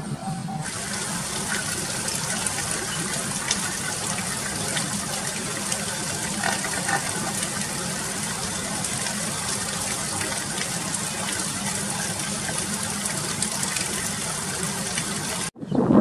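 A steady rushing hiss that sounds like running water and cuts off abruptly near the end.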